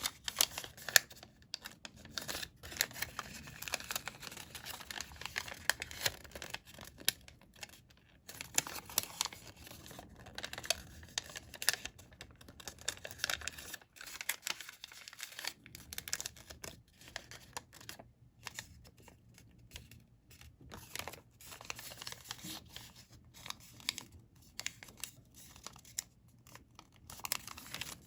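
A sheet of colored origami paper being folded and creased by hand: irregular rustling and crinkling with many sharp crisp clicks as the folds are pressed.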